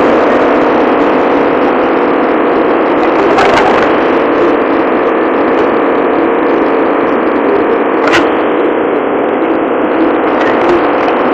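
Steady loud noise on the deck of a ship under way: the ship's engine drone mixed with the rush of wind and sea. Two brief clicks, about three and a half and eight seconds in.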